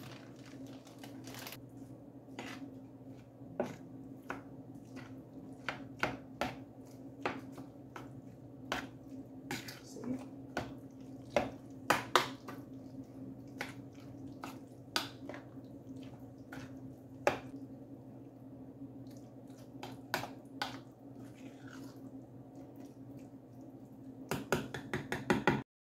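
Irregular clicks and clacks of utensils against a bowl as a chopped salad is tossed and mixed, over a steady low hum.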